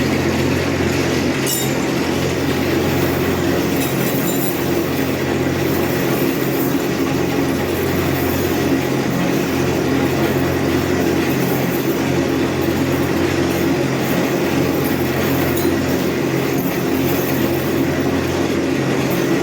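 Steady mechanical hum of a running machine motor, unchanging throughout.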